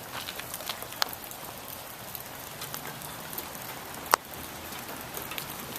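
Wet falling snow pattering steadily, with scattered sharp ticks; one louder tick comes about four seconds in.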